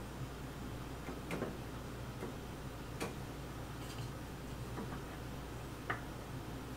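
About six light, irregular clicks and taps, roughly a second apart, from a table saw's rip fence being slid and adjusted against a 1-2-3 block, over a faint steady low hum.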